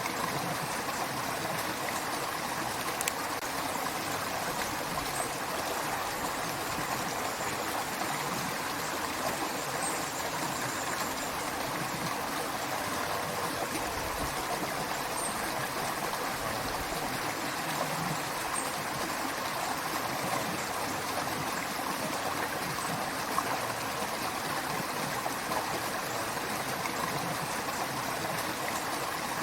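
Creek water running steadily over rocks, a continuous rushing and trickling.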